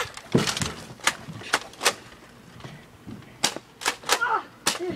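Toy Nerf foam-dart blasters being fired and worked: about eight sharp plastic clacks and pops, unevenly spaced in two bursts, with a brief shout near the end.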